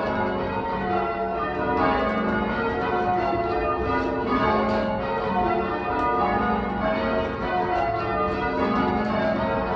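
A ring of eight church bells, 14 cwt and tuned to F#, mostly cast by Taylor's, ringing call changes. The bells strike one after another without a break.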